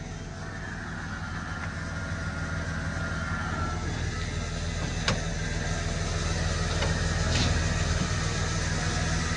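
Electric trailer winch winding in its cable and pulling a non-running car toward the trailer ramp, over a steady low engine hum, growing louder. A sharp click comes about five seconds in.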